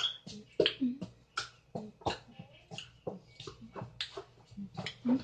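Mouth sounds of someone eating Oreo cookies: quick smacking and chewing clicks, about three a second, with short hummed 'mm's of enjoyment.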